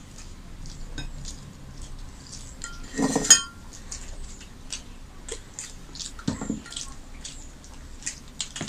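Eating by hand: fingers working rice on the plates, with many small clicks and smacks. About three seconds in a stainless steel bowl clanks and rings briefly against a plate as dal is poured onto the rice. A duller knock follows about six seconds in.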